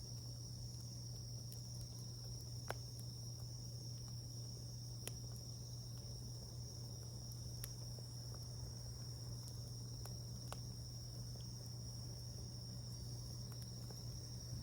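Wood fire giving off a handful of sharp crackles and pops, over a steady high-pitched trill of crickets and a low steady hum.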